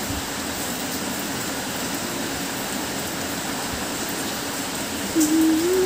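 Steady hiss of background noise; near the end a single held tone begins and steps up in pitch.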